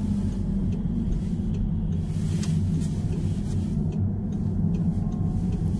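Steady low rumble of a car's engine and tyres while driving, heard from inside the cabin.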